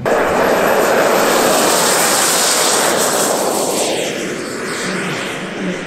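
Model jet aircraft flying past: a loud rushing whine that starts suddenly, its pitch falling away about halfway through as it passes, then easing off.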